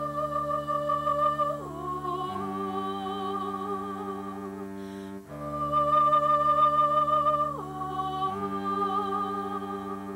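Slow instrumental music: a wavering, held melody over sustained low chords, stepping down in pitch partway through, with the same phrase played twice.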